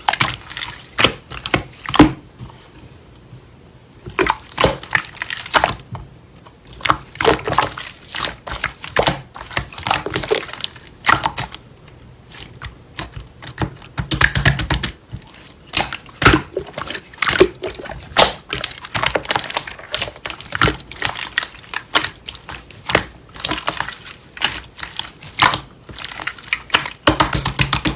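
Slime being squished, stretched and poked by hand, with a steady run of irregular wet clicks and pops from trapped air.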